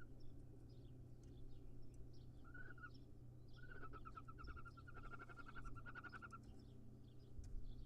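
Faint animal calls: a short chirp about two and a half seconds in, then a rapid pulsed trill lasting about three seconds, over a low steady hum and scattered faint ticks.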